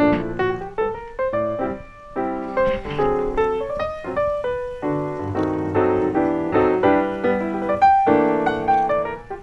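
Piano music playing a quick succession of notes and chords.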